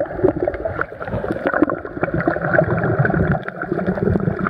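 Sea water heard from underwater: a muffled, steady churning with many small bubbling clicks.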